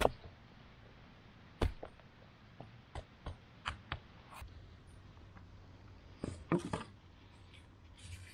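Stones knocking and scraping as they are set by hand into place: scattered single sharp knocks, with a louder cluster of knocks about six seconds in.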